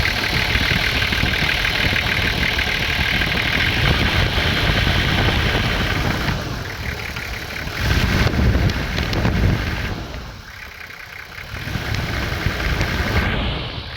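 Toyota 1HZ inline-six diesel engine running at idle after a fuel injection pump rebuild. It runs steadily at first, then dips and picks up again several times in the second half.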